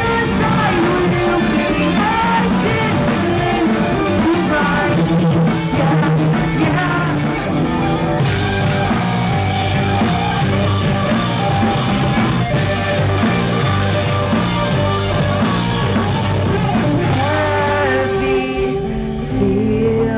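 A rock band playing live through a PA: distorted electric guitars, bass and drums, with a sung vocal from the drummer. The full sound thins out near the end.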